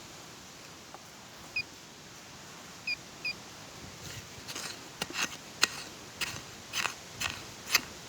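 Three short, high chirps from a bird in the first half, then, from about four seconds in, a run of sharp, irregular crunches and cracks of dry forest litter, leaves and twigs breaking.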